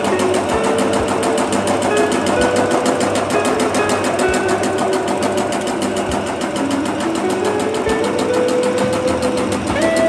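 Bakso (meatball) forming machine running, its motor and forming gears turning with a rapid, steady, even clatter.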